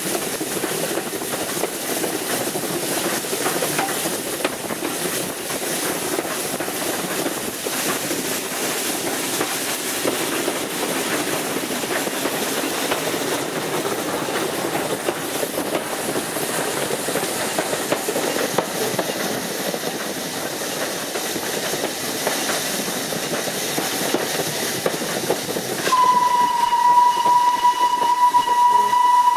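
Steam locomotive running along the track, a steady noise of wheels on rails and working steam. Near the end its steam whistle sounds one long, steady blast.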